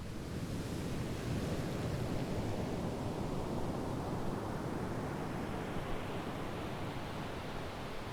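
Sea waves washing ashore: a steady rush of surf that builds in the first second, then its hiss thins out over the second half.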